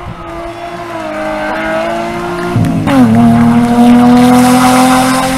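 Historic rally car's engine at high revs as the car comes at speed, its pitch climbing, then dropping sharply about two and a half seconds in. It then holds a steady high note, loud and close, as the car passes.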